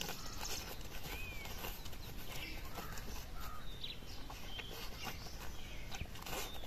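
Light scraping and rustling as a muzzled Labrador puppy noses and digs in grass and dirt. A few short bird chirps sound in the background.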